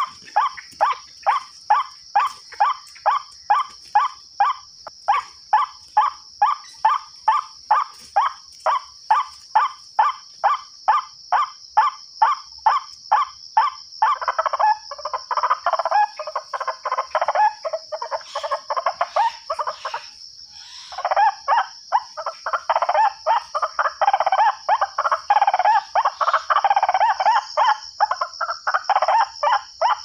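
White-breasted waterhen (ruak-ruak) calls played as a lure through a small horn loudspeaker: a steady run of about three harsh notes a second, changing about 14 s in to a dense, overlapping chattering chorus of calls. A steady high insect drone sounds underneath.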